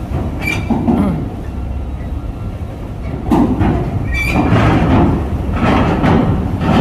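Heavy babaranjang trucks' diesel engines running with a steady low rumble, broken by short hisses and squeaks about half a second in and again around four seconds in.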